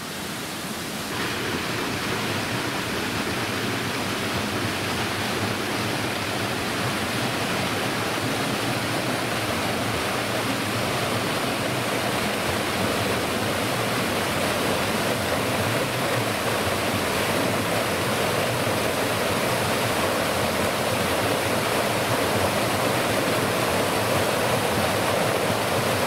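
Rushing water of a rocky stream cascading over rock into pools: a steady rush that grows gradually louder.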